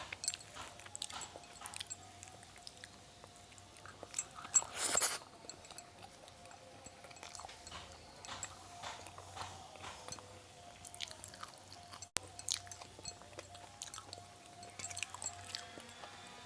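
Close-miked chewing and mouth sounds of someone eating a rice-and-curry meal: many small wet smacks and clicks, with one louder, longer noisy sound about four and a half seconds in.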